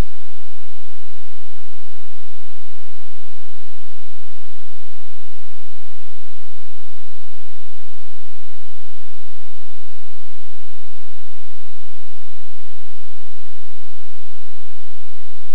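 Loud, steady electrical hum mixed with hiss, unchanging throughout: interference noise on the audio capture.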